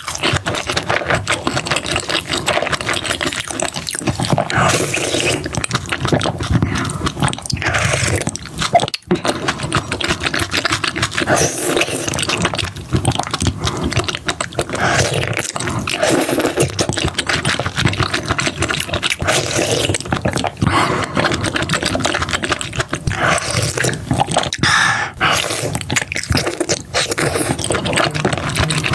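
Close-miked eating of seafood: continual wet chewing, smacking and sucking with many small clicks and scrapes.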